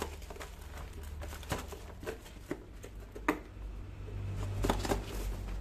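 Cardboard packaging boxes being handled by hand: scattered light taps, scrapes and knocks, the sharpest a little past halfway.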